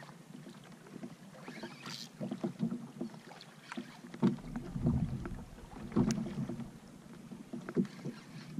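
Waves slapping against the hull of a plastic Hobie Pro Angler fishing kayak, with wind on the microphone. Scattered sharp clicks and knocks come from the rod and spinning reel gear as a hooked fish is reeled in.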